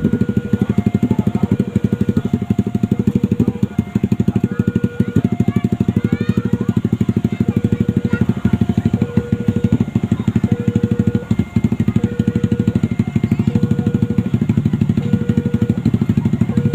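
Railway level-crossing warning signal sounding, an electronic two-tone alarm alternating a lower and a higher tone, about one pair every second and a half, over the steady low drone of running engines.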